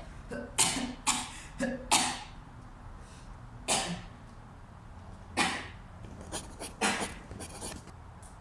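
A person coughing over and over: four coughs in quick succession, then single coughs about every second and a half, with a few smaller coughs near the end.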